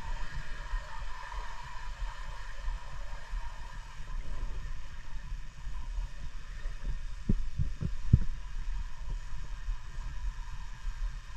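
Muffled underwater noise picked up through a waterproof camera housing while freediving: a steady low rumble, with three dull thumps close together about seven to eight seconds in.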